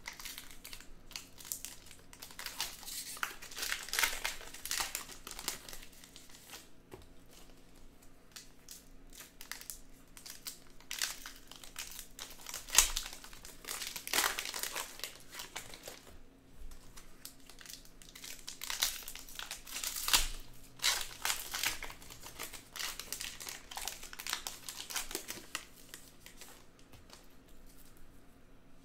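Plastic-foil trading card pack wrappers being torn open and crinkled by hand in irregular rustling bursts, with one sharper crack about halfway through.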